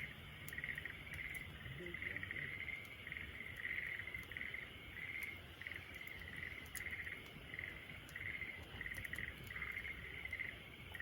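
Crickets chirping in a steady rhythm, a little more than one chirp a second, with faint scattered crackles from a campfire.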